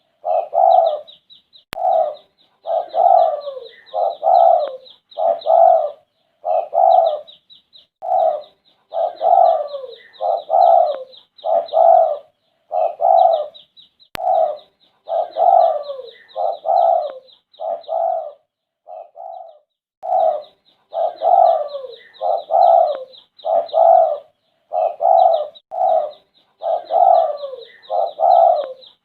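Derkuku (spotted dove) cooing again and again in quick runs of short coos, with brief pauses between phrases; a fast, thin, high chirping goes on behind it.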